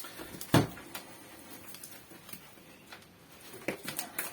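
Light handling clicks and knocks: one sharp click about half a second in, then several quick clicks near the end, as plastic tire levers are picked up and worked against a bicycle wheel rim.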